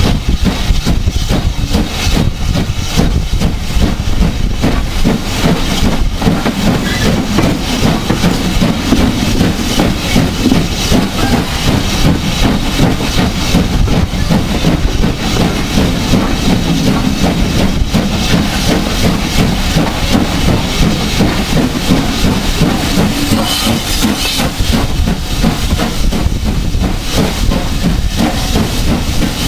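Steam locomotive 73096, a BR Standard Class 5 4-6-0, working hard, its exhaust beats coming fast and without a break, heard from a carriage behind it over the rumble of the train on the rails.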